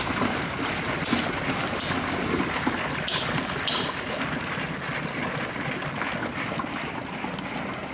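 Steady bubbling and fizzing of HHO gas from a running electrolysis hydrogen generator, the gas bubbling through water. Four short hissing bursts come in the first four seconds.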